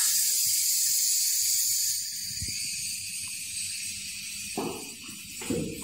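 Air hissing out of an inflated PET bottle through its opened valve as it deflates, strong for about two seconds and then fading. A few faint knocks come near the end.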